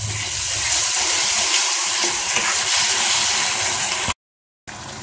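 Cornflour-thickened sauce sizzling in a hot pan just after extra water goes in, a steady hiss that cuts off suddenly just after four seconds in and comes back quieter about half a second later.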